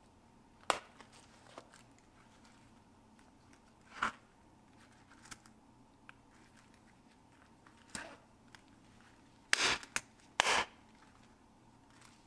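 A leather coin pouch being handled and opened by hand: a few sharp clicks from its snap fastener and fittings, then two short scuffing rustles of leather near the end.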